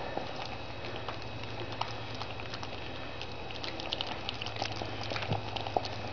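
Springer spaniel puppies eating together from one plate of soft cooked chicken, carrots and rice: a dense, irregular run of wet smacking, chewing and lapping clicks, over a steady low hum.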